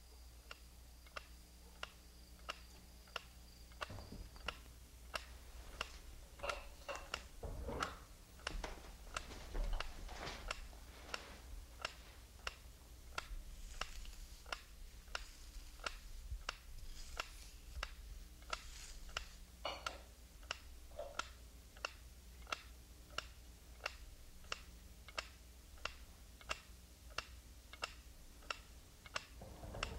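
Clock ticking steadily in a quiet room, about two ticks a second, with faint soft handling sounds in between.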